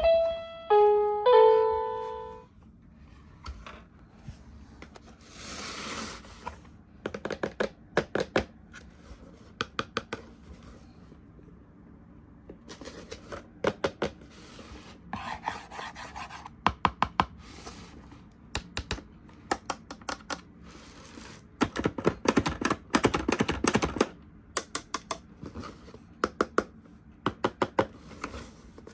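A toy's electronic tune plays its last notes in the first two seconds. Then come clusters of clicks and taps, with stretches of rustling, as plastic toys and their packaging are handled.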